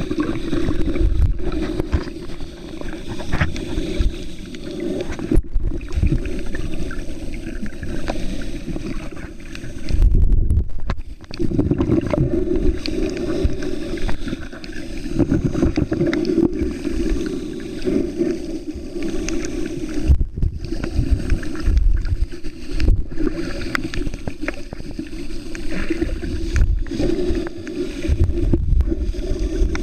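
Underwater sound picked up through a waterproof camera's sealed body: a low, muffled rumble of water moving around the camera that swells and fades unevenly.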